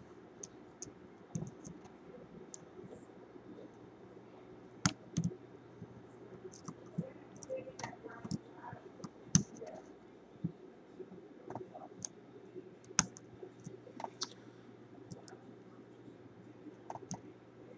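Faint, irregular metallic clicks and scrapes of a short hook pick working the spool-serrated security pins of a Brinks shrouded stainless steel padlock under tension. A few sharper clicks stand out about 5, 9 and 13 seconds in.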